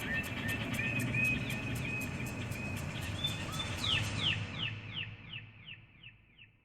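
A bird singing: a steady run of repeated chirping notes, then a quicker series of down-slurred notes that fade away to silence near the end.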